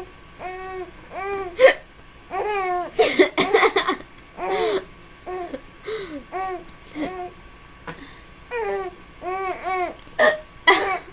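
A young girl laughing in many short, high-pitched bursts, with a woman's sharp hiccups breaking in among them.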